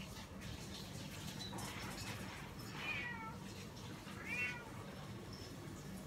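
A cat meowing twice, short falling calls about three and four and a half seconds in, over a low steady hum.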